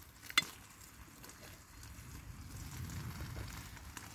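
A single sharp metallic clink about half a second in as bacon is moved from an aluminium bowl into the frying pan on a Trangia alcohol stove. Under it runs a low rumble with faint crackling from the burning stove and pan.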